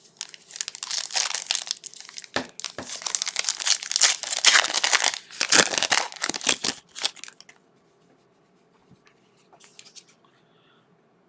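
Foil trading-card pack wrapper being torn open and crinkled for about seven seconds, then near quiet with a few faint clicks.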